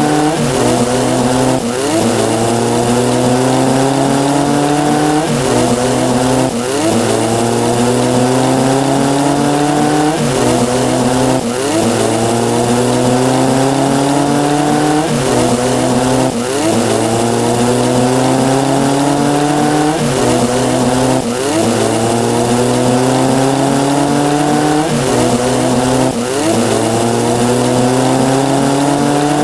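Synthesized sound effect for a counter: a buzzy pitched tone that slowly rises in pitch, drops back and rises again, in a cycle that repeats about every five seconds, with a short rise and a long rise in each cycle. It sounds like an engine revving up.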